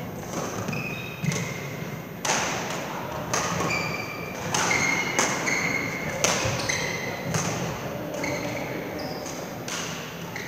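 Badminton rally on an indoor court: sharp racket-on-shuttlecock hits about once a second, echoing in the hall, mixed with short high squeaks of shoes on the court floor.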